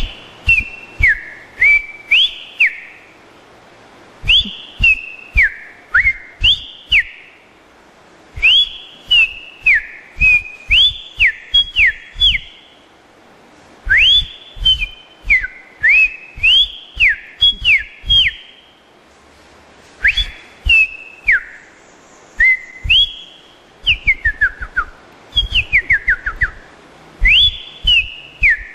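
A person whistling an imitation of the streaked saltator's song: repeated phrases of five or six quick notes, each shooting up and then sliding down, with short pauses between phrases. Each note comes with a low thump of breath on the microphone.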